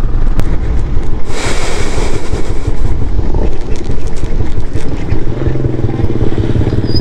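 Royal Enfield Classic 350's single-cylinder engine running while the motorcycle is ridden, with wind buffeting the onboard camera microphone. From about five seconds in the engine settles into a steadier low hum as the bike slows.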